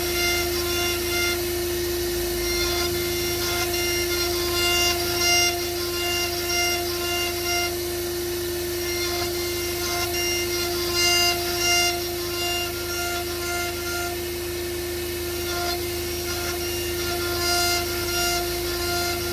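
CNC router spindle running with a steady high whine while cutting MDF panels. Shorter, higher tones come and go over it as the machine moves.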